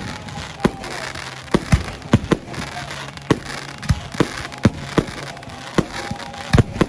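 Wedding fireworks display: about a dozen sharp bangs of shells bursting at irregular intervals over a continuous crackling hiss.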